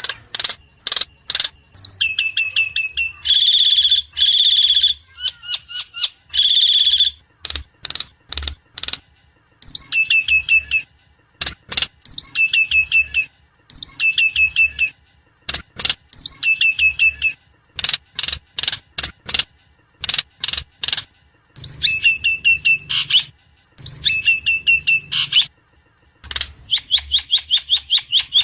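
Javan myna song: repeated bouts of quick, falling high notes mixed with sharp clicks and harsh buzzy chatter, each bout lasting a second or two with short pauses between. It is played as a therapy recording to provoke a sluggish, silent myna into singing.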